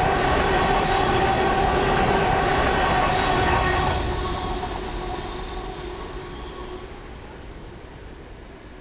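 Empty coal hopper cars of a freight train rolling by at speed, steel wheels on rail with a steady ringing whine over the rumble. About four seconds in the sound starts fading away as the end of the train recedes.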